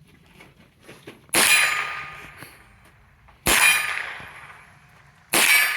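Three .22 rimfire rifle shots from a Winchester Wildcat, about two seconds apart, each followed by a ringing clang of a steel target being hit.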